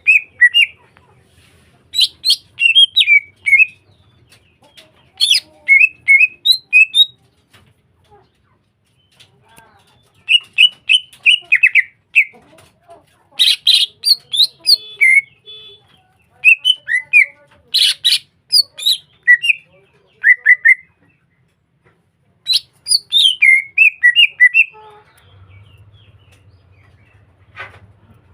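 Cucak hijau (green leafbird) singing in repeated bursts of quick, chirping whistled phrases, with short pauses of a second or more between bursts.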